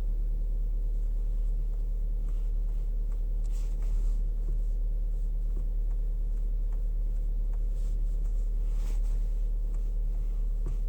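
Skoda Rapid's steering rack giving occasional faint knocks as the steering wheel is turned, over a steady low hum: the knock of a steering rack with play in it.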